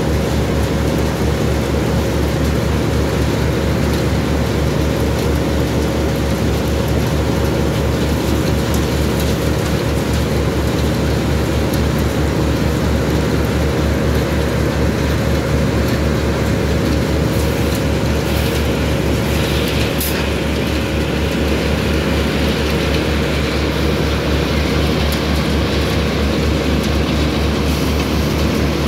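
Asphalt batching plant machinery running: a loud, steady industrial drone with a fast low throb and a steady mid-pitched hum.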